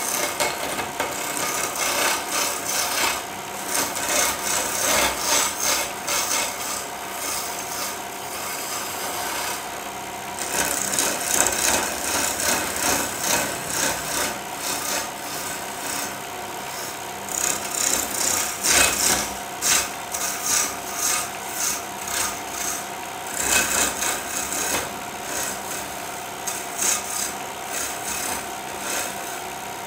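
A hand-held chisel cutting a spinning wooden spindle on a wood lathe: a hissing scrape that comes in uneven spells with short lulls, over the steady hum of the running lathe.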